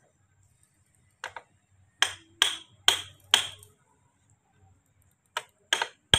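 Sharp metallic knocks, like hammer blows on metal, each with a short ring: a faint one just after a second in, four loud ones about half a second apart, then two more near the end.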